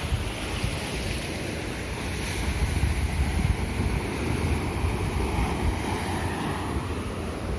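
Wind buffeting the microphone, a low rumble of gusts over a steady rushing noise, swelling from about two and a half to four seconds in.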